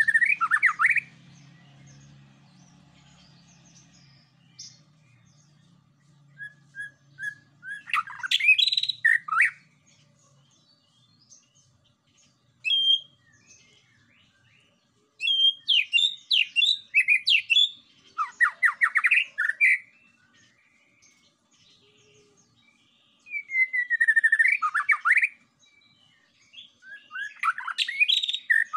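Male white-rumped shama singing: about six loud bursts of fast, varied whistled and rattling notes, with pauses of a few seconds between them.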